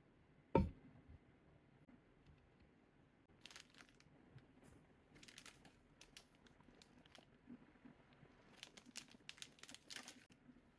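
A single thump about half a second in, then faint crinkling and rustling of plastic packaging in several short spells, thickest near the end.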